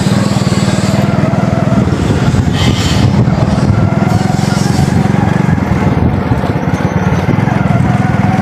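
Small motorcycle engine running steadily at cruising speed, heard from the pillion seat, with wind noise on the microphone.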